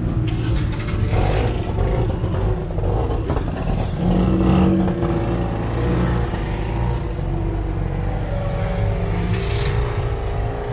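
Tuk-tuk's small engine running as the auto-rickshaw drives through city traffic, heard from the open passenger cabin, with street noise around it.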